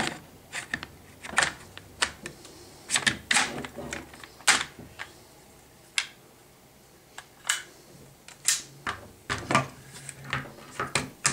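Irregular sharp clicks and knocks of a WE Tech gas blowback SCAR-L airsoft rifle's parts being handled and fitted together during reassembly, with a quieter stretch about halfway through.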